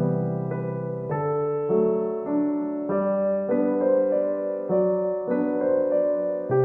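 Gentle background piano music, a steady run of notes changing about every half second over sustained chords.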